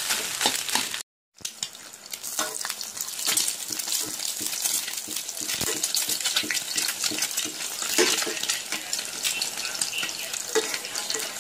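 Rice frying in a hot wok, then after a short silent cut an egg sizzling in hot oil in a steel pan, with many small pops and a metal utensil scraping and tapping against the pan.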